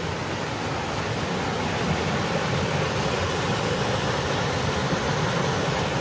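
A small waterfall on a little stream cascading over rock ledges, giving a steady rush and splash of falling water.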